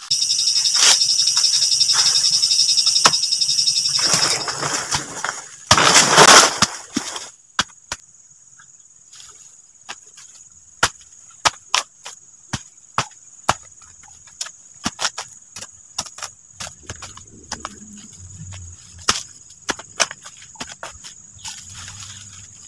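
Insects buzzing loudly and shrilly for the first few seconds, then a series of sharp knocks, about one or two a second: chopping strokes into the base of a banana plant to cut out its corm, with a faint steady insect whine behind.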